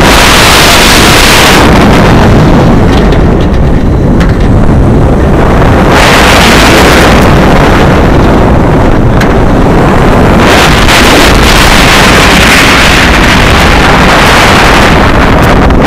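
Wind rushing and buffeting loudly over the microphone of a B&M hyper coaster train running at speed, with the rumble of the train on the track beneath. The wind hiss surges three times, about at the start, around six seconds in, and for several seconds from about ten seconds in.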